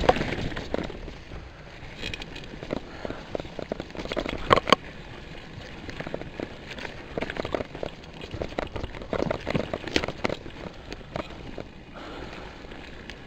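Full-suspension mountain bike rattling over a rough dirt trail: a dense run of irregular clicks, knocks and clatter from the bike, with one louder knock about four and a half seconds in.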